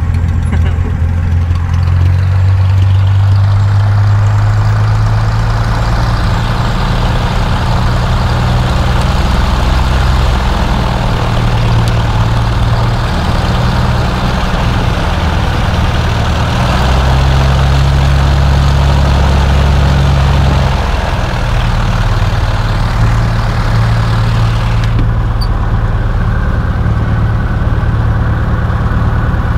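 Cessna 172B's six-cylinder Continental O-300 piston engine and propeller running at low power, heard from inside the cabin on the ground before takeoff. The engine note is steady but changes pitch a few times, dropping lower for a few seconds around the middle.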